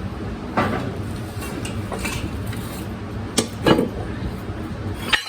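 Steel wrench and cheater pipe clanking against a mower blade and its bolt, about four sharp metal strikes, over a steady low hum.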